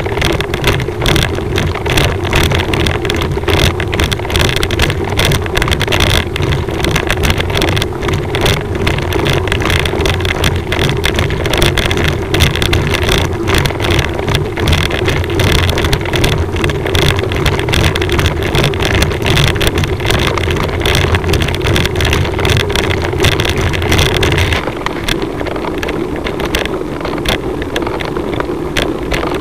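Wind buffeting the microphone of a moving camera, over a steady low rumble; the deepest part of the rumble drops away about 25 seconds in.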